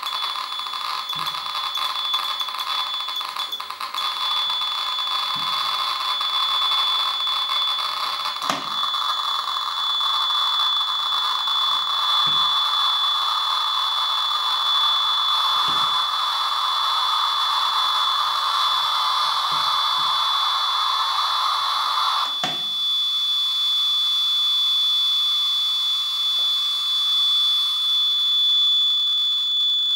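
SV-500 Geiger counter with an SBT-10 pancake tube sounding a steady high-pitched alarm tone over a dense crackle of rapid counts, from a radioactive sample in a jar held to the probe. The crackle eases off about two-thirds of the way through while the tone holds, with a few separate knocks scattered across it.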